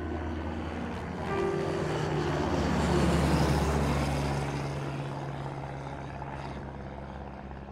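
Light propeller plane flying low overhead: the engine grows louder to a peak about three seconds in, its pitch dropping as it passes, then fades away.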